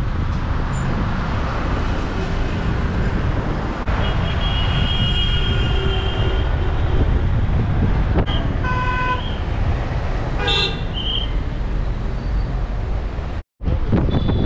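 Road traffic with a steady low rumble and vehicle horns honking: one long horn about four seconds in, then two shorter toots a few seconds later.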